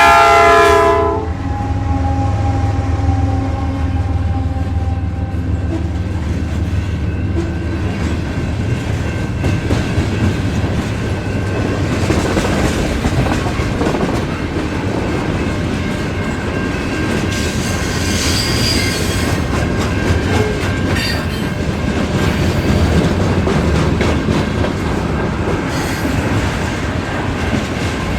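Freight train passing: the diesel locomotive's horn sounds a chord that stops about a second in. Then comes the locomotive's steady low rumble, with the cars clattering over the rail joints.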